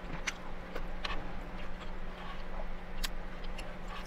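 Eating sounds: a fork clicking and scraping on a plate and light mouth noises from chewing, a few scattered sharp ticks over a steady low hum.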